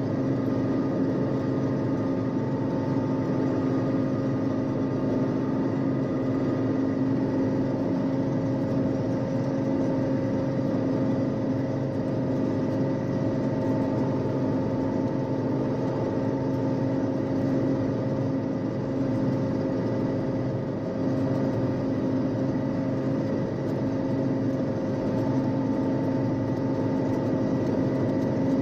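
A 1974 John Deere 6600 combine running steadily under load while harvesting soybeans, heard from the cab: a constant drone of engine and threshing machinery with a steady hum that does not change.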